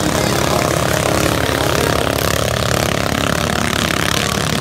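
Racing flat boat's engine running hard at speed, a loud, steady drone.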